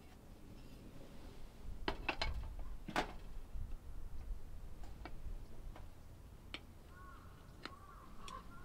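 A handful of sharp clicks and knocks, spaced irregularly, over a low steady rumble.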